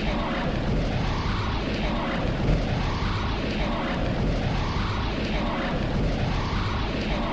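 A looped rushing, rumbling sound effect, steady and loud, its pattern repeating about every one and a half to two seconds.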